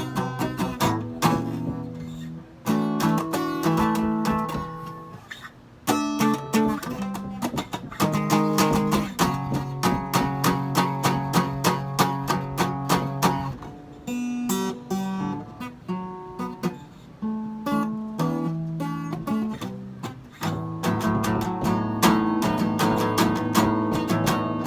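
A guitar strummed in chords, the chord changing every second or two, with a short break about five seconds in.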